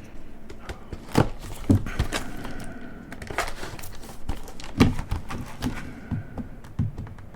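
Cardboard trading-card box being handled and opened by hand: irregular taps, knocks and heavier thumps, the strongest about a second in and near five seconds, with rubbing and scraping of card between them.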